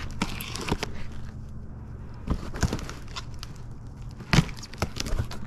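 Small knife slitting the packing tape on a cardboard box, with cardboard scraping and rustling, then several sharp knocks and clicks as the box is handled; the loudest knock comes about four and a half seconds in.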